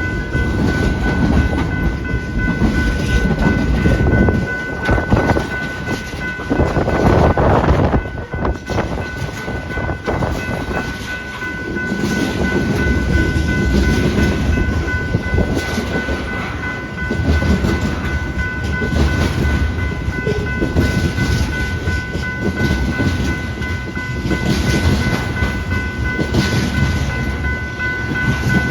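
BNSF freight train rolling past, its cars clattering over the rail joints with a continuous rumble, while wind buffets the microphone.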